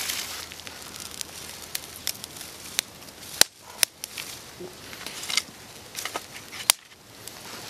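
Small campfire of dry dead sticks just catching, crackling with scattered sharp snaps over a light hiss. Sticks are shifted on the fire by hand, with two louder snaps, one about midway and one near the end.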